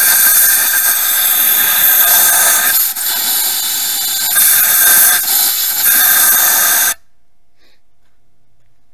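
Compressed-air blow gun hissing loudly as it blasts into an outboard engine's thermostat housing, purging water from the cooling passages. The blast eases briefly about three seconds in, then cuts off suddenly about seven seconds in.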